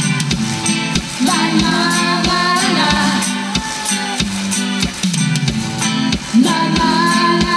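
Live rock band playing: electric guitar and a steady drum beat, with a woman singing over them.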